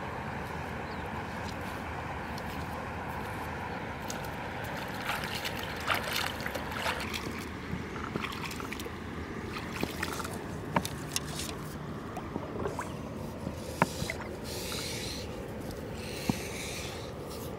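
Bare feet wading in shallow river water, splashing and sloshing, with a few sharp clicks, over a steady hiss.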